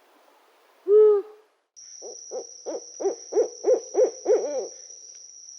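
An owl hooting: a single low hoot, then, after a short break, a rapid run of about eight hoots at roughly three a second. A steady high insect drone runs behind the run of hoots.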